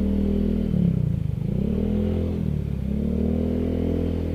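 Motorcycle engine running at low speed, its revs dipping and picking up again twice as the rider eases the throttle through floodwater.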